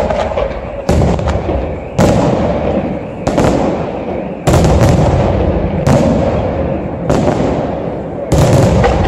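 Aerial firework shells bursting in quick succession, a sharp bang about every second, each followed by a rumbling echo that fades into the next.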